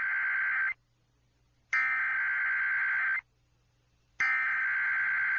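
Emergency Alert System SAME header: harsh, buzzy digital data bursts, one ending under a second in, a second full burst, and a third starting about four seconds in, each about a second and a half long with a second of silence between. This is the coded header that opens an EAS / NOAA Weather Radio alert, here the one for a tornado watch.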